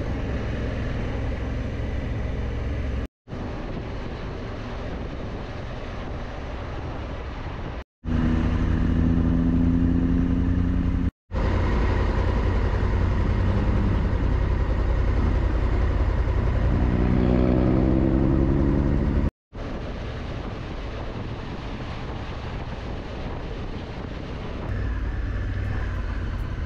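Honda Africa Twin motorcycle riding: heavy wind rush with the engine running underneath, in several short clips with brief dropouts between them. In one clip the engine's pitch rises as the bike accelerates.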